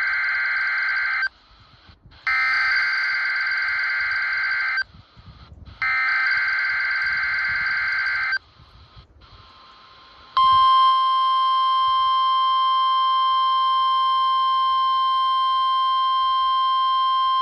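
NOAA Weather Radio Emergency Alert System signal heard through a weather radio's speaker. First come the screeching digital SAME header bursts: the tail of one, then two more, each about two and a half seconds long with a second of silence between. About ten seconds in, the steady 1050 Hz warning alarm tone starts and holds.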